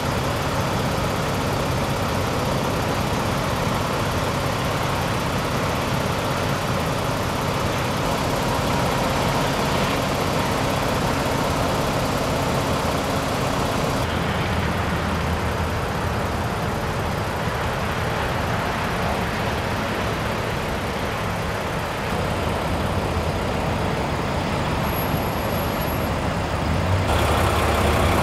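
2008 Mack day cab tractor's diesel engine idling steadily, with a low even hum; the tone shifts abruptly twice.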